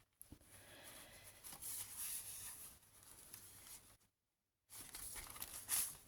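Soft rustling and crinkling of paper and acetate as the pages of a handmade junk journal are handled and turned, broken by a moment of complete silence a little past the middle.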